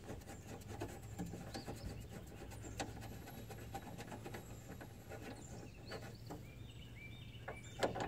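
Faint rubbing and scattered light clicks as a Torx bolt is started by hand into a rear hatch latch, with the hand brushing the hatch's inner panel.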